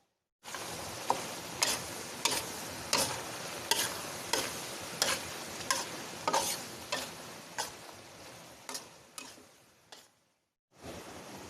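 Pomelo peel simmering in thick rock-sugar syrup, a steady hiss of bubbling, while it is stirred in the pot with a sharp click about every two-thirds of a second. The clicks fade out, and after a short gap near the end a different steady hiss takes over.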